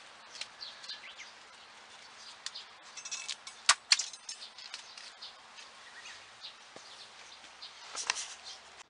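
Scattered light ticking and patter of raindrops on a greenhouse's plastic film, with a pair of sharp loud clicks near the middle and another near the end.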